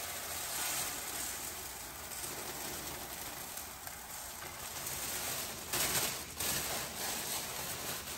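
Dry sticky rice pouring from a plastic bag into a plastic basin: a steady pattering hiss of grains, with a few louder rustles about six seconds in.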